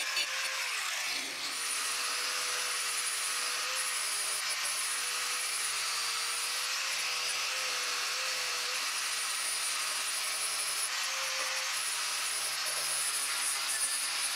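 Angle grinder fitted with a wire wheel scouring rust off an old steel axe head: a steady motor whine under a broad scratching hiss from the wire bristles, with a brief dip about a second in.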